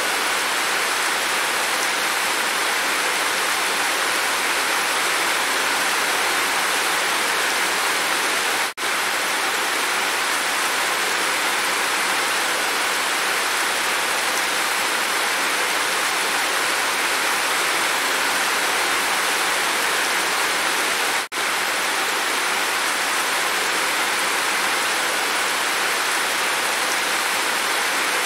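Heavy rain falling and running off the edge of a roof as a steady, even hiss, which cuts out for an instant twice.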